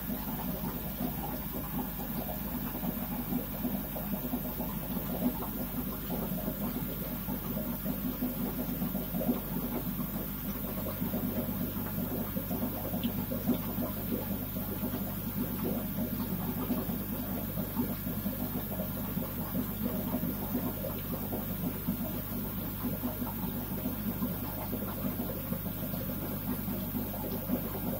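Steady hum of running aquarium equipment with a light churning of moving water. A deeper hum grows stronger about eleven seconds in.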